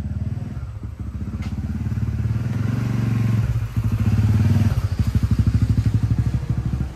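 Motorcycle engine running at low speed as it rides up close, its exhaust beating in a rapid, even pulse; it grows louder and is loudest about four to five seconds in.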